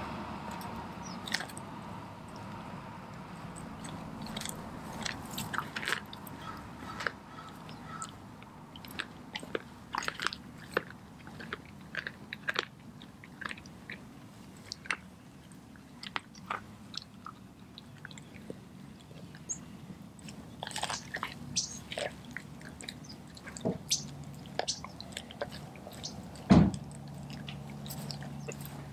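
Doberman chewing a whole raw chicken with its feathers on: wet chewing with irregular crunches and snaps, one sharp loud snap near the end.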